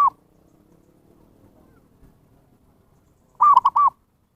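Zebra dove cooing: the last note of one phrase right at the start, then a full phrase of about four quick, arched notes about three and a half seconds in.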